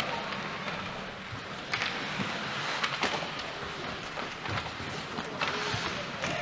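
Ice hockey rink during play: a steady wash of skating and arena noise, broken by a few sharp clacks, about two seconds in, again about three seconds in, and once more near the end.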